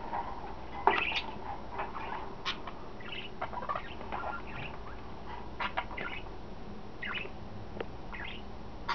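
Pet budgerigars chattering in their cage: a steady run of short chirps and squawks, the loudest about a second in.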